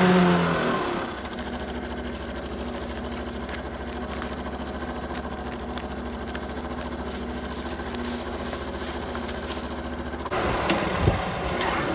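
Small motorbike engine slowing to a stop and idling steadily for about nine seconds, then revving up again as it pulls away, with a couple of sharp clicks just after.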